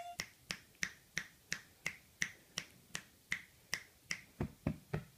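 Fingers snapping in a steady run of about three snaps a second, quickening near the end: a person calling a cat.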